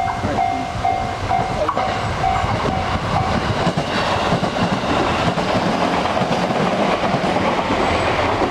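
JR West 221 series electric train rolling past with wheel clatter and running noise, while a Japanese level crossing bell dings about twice a second and stops about three seconds in.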